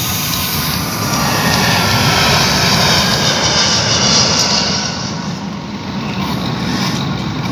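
A steady, loud engine-like drone that swells about a second in and eases off near the end.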